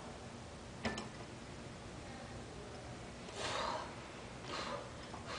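A person breathing hard in short, sharp breaths between barbell back squat reps, twice in the latter half. A single sharp click about a second in.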